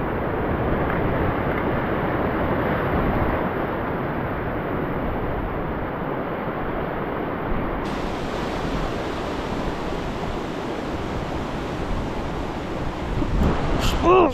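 Surf washing and breaking over a rocky reef shelf: a steady rush of water. Just before the end, a short, loud pitched sound rises over it.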